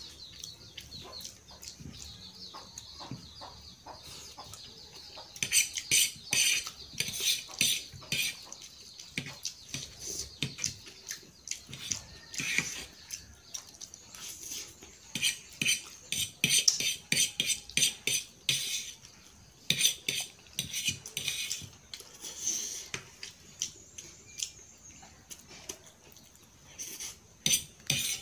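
Metal fork clinking and scraping against a plate in quick, irregular clicks while noodles are picked up and eaten, sparse at first and busier from about five seconds in.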